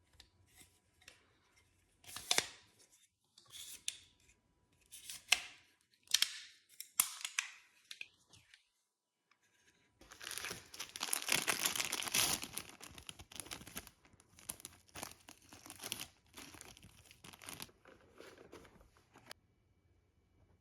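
Packaging being handled and torn open by hand, with short rustles and tears for the first several seconds, a longer stretch of continuous tearing and crinkling about halfway through, then lighter rustling that stops near the end.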